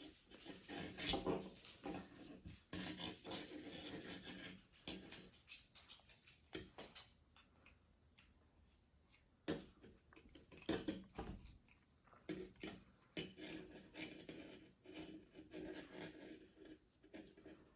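Faint, irregular rustling and small taps from hands handling the rocket parts while tying a string into knots.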